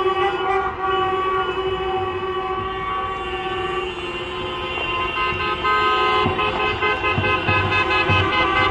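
Several car horns honking at once in long held blasts that overlap and change pitch now and then, as in a wedding convoy. From about six seconds in, low thumps join them.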